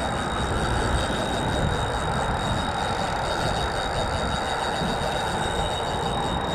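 Spinning reel's drag running continuously with a steady high whine as line is pulled off by a large animal: a manatee caught on the line. Wind rumbles on the microphone throughout.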